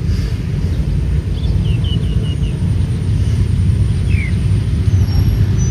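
Steady low outdoor rumble, with a short run of faint high chirps a little over a second in and one more falling chirp about four seconds in.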